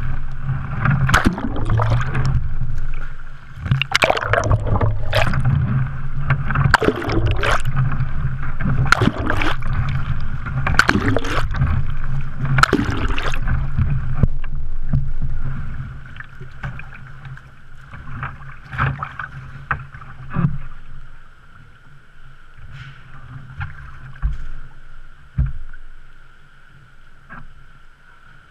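Pool water splashing and churning around a capsizing and righting sea kayak during repeated hand rolls, with hands sweeping and slapping the surface in splashes about once a second. About halfway through it settles to quieter lapping with occasional small splashes.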